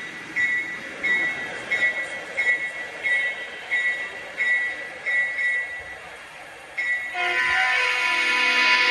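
Freight train passing, with a high ringing tone that repeats evenly about one and a half times a second. Music starts about seven seconds in.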